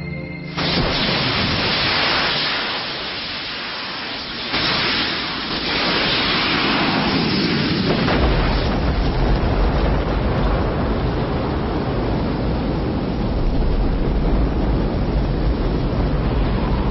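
Space shuttle launch on the pad: a loud rushing hiss starts suddenly about half a second in and swells again around four and a half seconds. From about eight seconds a deep, steady rumble joins as the main engines light and build.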